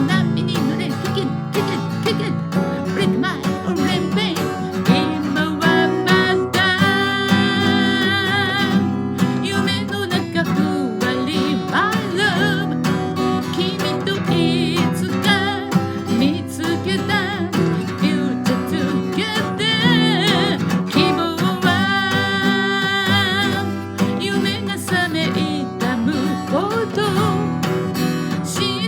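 Acoustic guitar playing a song with a singing voice over it, with long held notes sung with vibrato.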